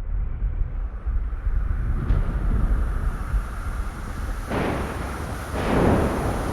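Thunderstorm rumble building steadily, broken by three loud thunder cracks, the first about four and a half seconds in and the last near the end.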